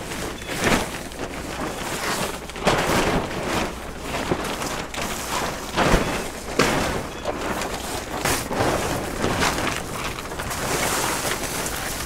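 Large silver plastic tarp being shaken out and spread over the ground, crinkling and flapping in irregular swishes, with a few sharper snaps.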